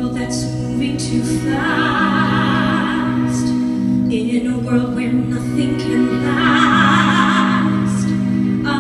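Live stage-musical ballad: the band holds soft sustained chords while a high voice sings two long, wavering held notes with vibrato, the first about two seconds in and the second about six seconds in.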